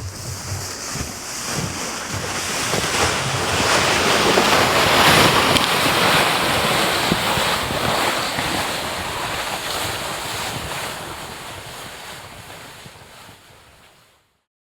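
Wind gusting in a snowstorm: a steady rush that swells to a peak about five seconds in, then slowly dies away and fades out near the end.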